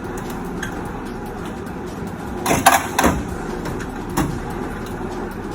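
Tools and metal tool-chest drawers being handled: a cluster of clatters and knocks about two and a half to three seconds in and another knock about four seconds in, over a steady background hum.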